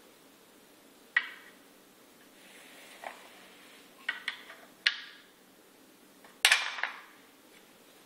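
Puzzle pieces knocking and clattering against a wooden Noah's Ark shape-sorter as they are pushed through its cut-out holes: scattered sharp clacks, with the loudest, a quick rattling cluster, late on.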